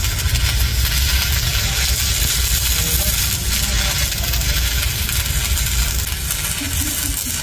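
Stick-welding arc crackling and hissing steadily as an electrode lays weld on the worn steel rim of a bulldozer idler wheel, over a steady low rumble.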